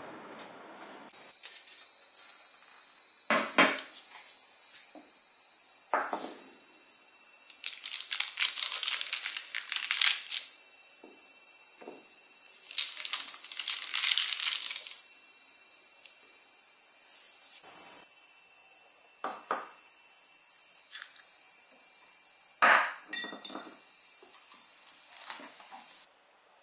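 Steady high-pitched chorus of insects, cicadas or crickets, with food and dishes being handled over it: rustling of baking paper and several sharp knocks and clinks of a plate and glass set on a wooden table.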